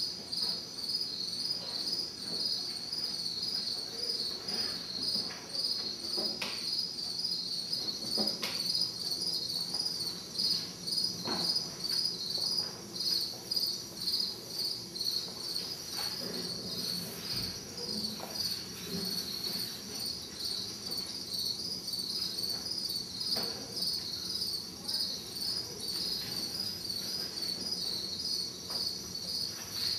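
Crickets chirping in a steady, regularly pulsing chorus, with a few soft knocks here and there.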